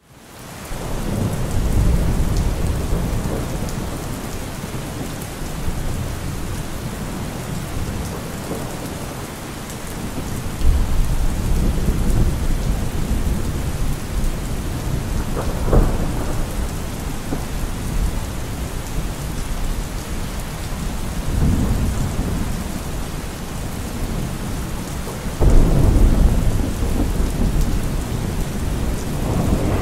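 Thunderstorm: steady rain with about five low thunder rumbles swelling and fading. A sharper crack comes about halfway through and the loudest rumble near the end. The sound fades in over the first second.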